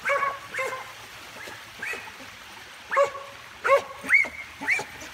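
A dog barking in short, high yips, seven in all, several of them rising in pitch.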